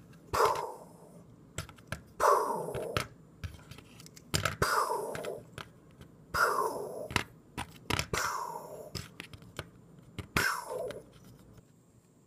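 Small LEGO brick build being knocked and slid on a hard tabletop as it is turned by hand: six short click-and-scrape sounds about two seconds apart.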